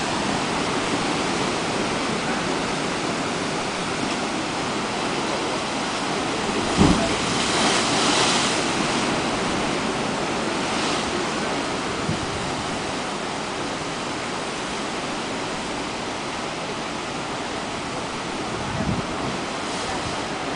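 Atlantic surf washing steadily into a narrow rock crevice. About seven seconds in there is a sudden low thump followed by a hiss of spray, and a smaller thump comes near the end.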